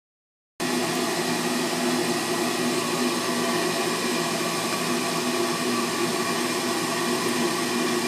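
A furnace draft inducer motor running steadily, a whirring blower noise with a constant hum. It cuts in abruptly about half a second in.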